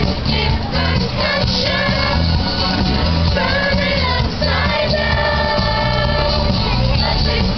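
Middle school chorus of boys' and girls' voices singing together, with a steady, bass-heavy accompaniment underneath.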